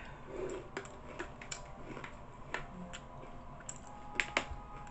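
Light, irregular clicks and crackles of people snacking, with two sharper clicks about four seconds in.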